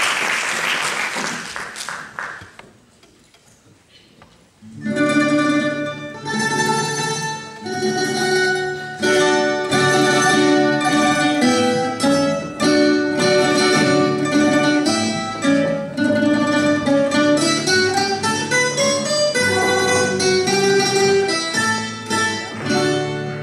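Audience applause dies away over the first two seconds. After a short hush, guitar-type plucked-string instruments start playing a Valencian folk dance tune about five seconds in.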